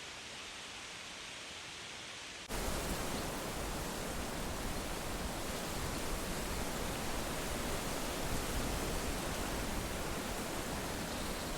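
Steady rush of wind through leaves. About two and a half seconds in, it jumps suddenly to a louder, brighter rush, which then holds steady.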